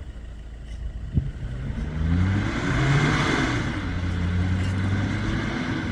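A 4x4's engine revs up about two seconds in, then runs on steadily at raised revs. A single sharp click comes just before.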